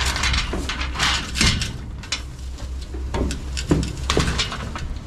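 A string of irregular knocks, clatters and rustles, about half a dozen, over a steady low hum.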